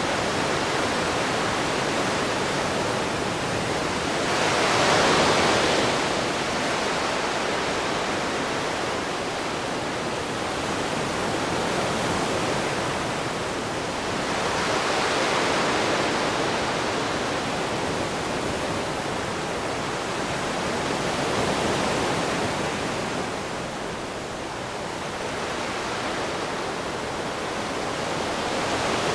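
Gentle ocean waves on a shore: a steady rush of surf that swells into a louder wash about five seconds in, and again around fifteen seconds and a little past twenty seconds.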